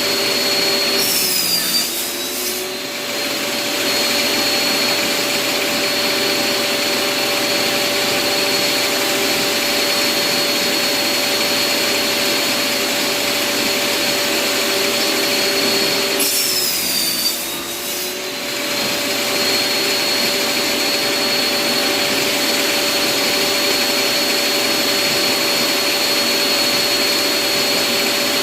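Bosch circular table saw running with a steady high whine. Twice, about a second in and again about halfway through, the pitch sags briefly as the blade bites into wood and then recovers.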